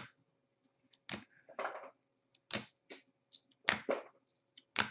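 Rigid plastic card top-loaders clicking and clacking against each other as a stack of cards is shuffled through by hand: a run of short, irregular clicks with brief gaps between them.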